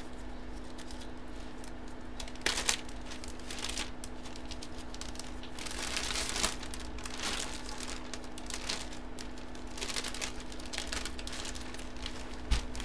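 Plastic packaging crinkling and rustling in irregular bursts as a boxed item is unwrapped, over a faint steady hum.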